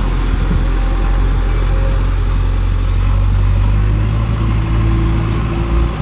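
Diesel engine of heavy farm or earth-moving machinery running steadily, its note shifting a little after halfway through.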